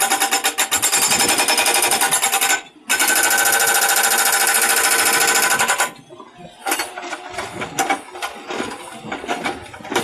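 Hydraulic breaker on a Kubota U50 mini excavator hammering concrete piles with rapid, even blows. It pauses briefly, resumes, then stops about six seconds in, after which only quieter, irregular knocking remains.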